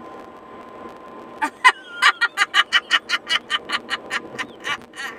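A person laughing in a fast cackle, about six pulses a second, starting sharply about a second and a half in and fading toward the end, over steady car road noise.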